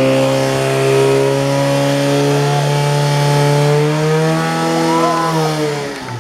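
Portable fire pump's engine running flat out, a steady high engine note, its pitch falling shortly before the end as it is throttled back.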